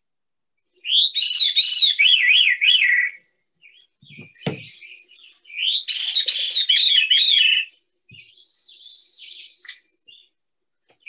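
Veery singing its spiralling downward song twice, each phrase about two seconds long, zigzagging down in pitch with two notes sounding at once; a third phrase starts at the very end. Between the songs there are softer high bird calls and a brief knock.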